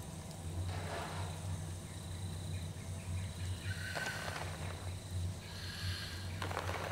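Eerie sound-design ambience: a low droning hum that pulses in level under a thin, steady high tone, broken by three short, noisy, breath-like sounds about a second in, around four seconds in, and near the end.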